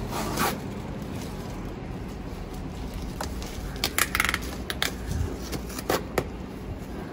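Cardboard shipping box being opened by hand: scattered crinkling, tearing and sharp clicks of the packaging, busiest about four seconds in.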